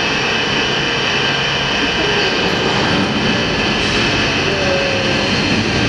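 Lifting machinery of the Morrison Bridge's bascule span running: a steady mechanical rumble with a whine of several steady tones, heavy steel machinery in motion.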